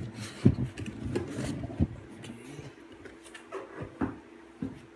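A sneaker box and its contents being handled: rustling and rubbing, with several light knocks and bumps.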